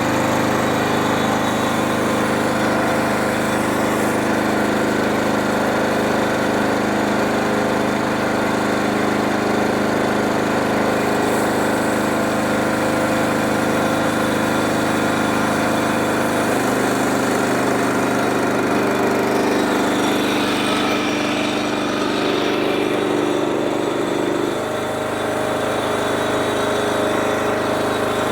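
Sawmill running steadily as it cuts a slab from a black walnut log, a constant machine drone whose tone shifts about halfway through and again near the end.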